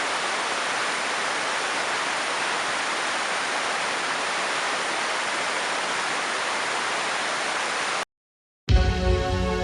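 Steady rushing of falling water from a waterfall, cut off abruptly about eight seconds in. After a brief silence, music begins near the end.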